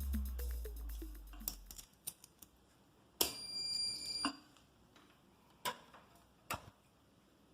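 Background music fading out, followed by a few light clicks, a high electronic beep lasting about a second, and two sharp clicks near the end.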